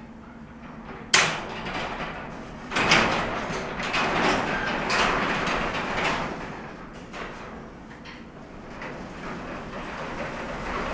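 Metal sectional garage door being worked by hand: a sharp bang about a second in, then several seconds of clattering and scraping that die down toward the end. The door has shifted to one side from a missing bolt.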